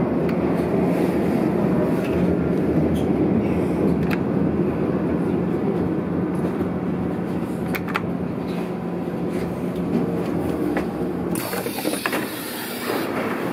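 Interior running noise of a Berlin U-Bahn F92 train with three-phase AC traction, rumbling through the tunnel with a steady hum and occasional clicks as it comes to a stop at a station. About eleven seconds in, a hiss starts as the passenger door opens.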